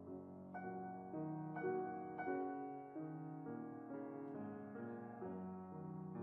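Background music: a soft, slow piano melody with sustained notes.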